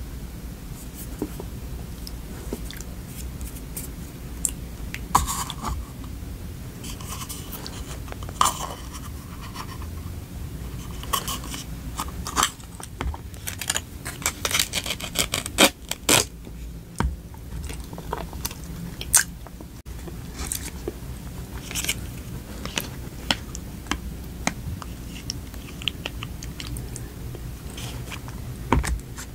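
Close-up handling of a plastic yogurt cup and spoon: the spoon scrapes and taps inside the cup, and the cup crinkles. The scrapes and clicks come irregularly, thickest about halfway through, over a steady low hum.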